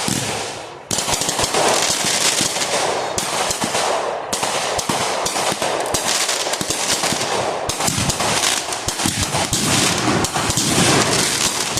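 Firecrackers going off in a rapid, dense crackle of pops, nearly unbroken, with a brief break about a second in.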